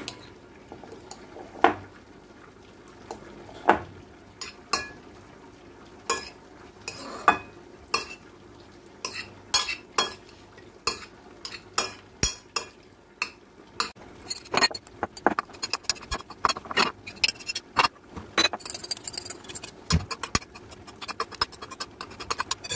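Metal spoon and fork clinking and scraping against a ceramic plate while tossing chopped boiled vegetables in a mayonnaise dressing. The taps are irregular, sparse at first and quicker and more frequent through the second half.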